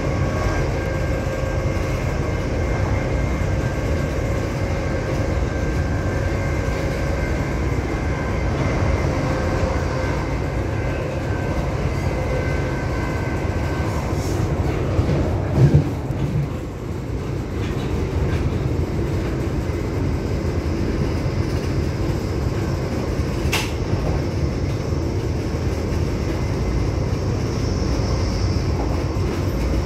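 Grand Central Class 180 Adelante diesel-hydraulic multiple unit running, its Cummins diesel engines giving a steady rumble under a whine of several steady tones that fades out about halfway. A brief loud thump comes just after the middle, and a sharp click about three-quarters of the way through.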